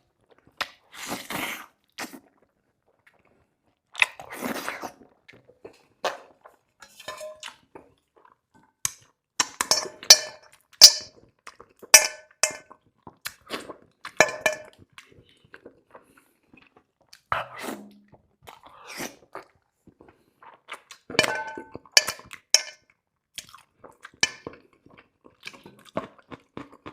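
Close-miked chewing and crunching of garlic rabbit, in irregular bites with sharp crackling crunches, loudest about ten to fifteen seconds in and again around twenty-two seconds.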